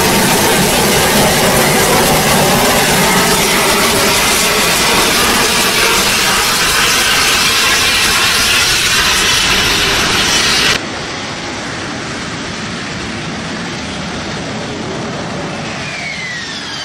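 Harrier jump jet's Pegasus turbofan in a hover: a loud, steady jet roar with a whine in it. About eleven seconds in it cuts to a quieter jet engine noise, with falling whines near the end.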